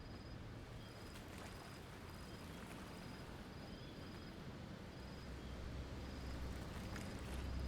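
Faint, steady outdoor noise with a short high chirp repeating about once a second, and background music fading in during the second half.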